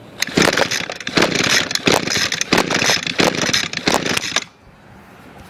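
Recoil starter cord of an Echo two-stroke string trimmer being pulled repeatedly on choke, about six quick rasping pulls with the engine not yet running, stopping abruptly near the end.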